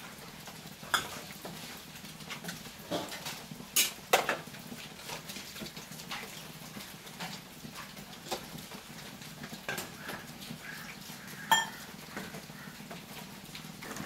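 Steel dishes and utensils clinking and knocking against the pot, a handful of separate sharp strikes spread out, as tamarind water is added to the bitter gourd curry.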